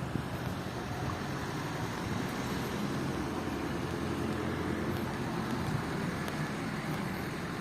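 Street traffic: the steady rumble of passing cars and engines.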